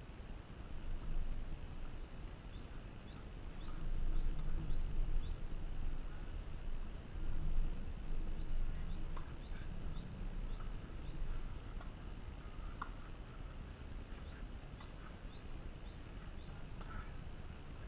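Wind rumbling on the microphone, strongest in the first half. Over it a small bird calls in three runs of quick, high, falling chirps, about three a second.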